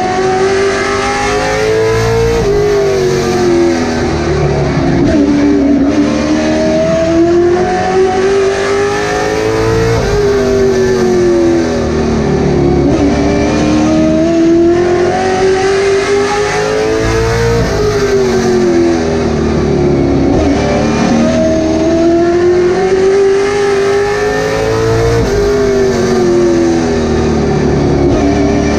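A late model stock car's V8 at race speed, heard from inside the cockpit. Its pitch climbs down each straight, then drops off sharply as the driver lifts for each corner, about every seven to eight seconds.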